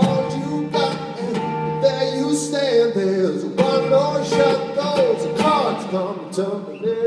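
A live acoustic band playing: strummed acoustic guitar under a sung melody with long held notes.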